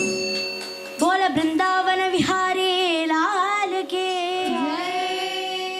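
Girls' voices singing a Carnatic bhajan together in unison: after a short pause they come in about a second in on a long, ornamented closing phrase, held and then fading near the end.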